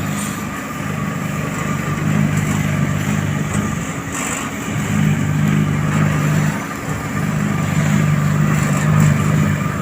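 Diesel engine of asphalt road-paving machinery running steadily, its low note easing briefly a couple of times.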